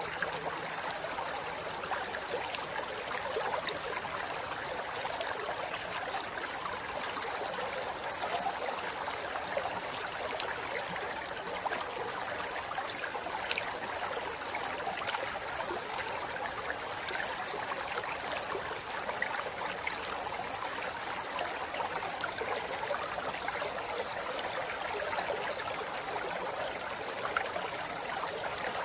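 Shallow river flowing steadily over rocks, with a constant rush and many small splashes and trickles.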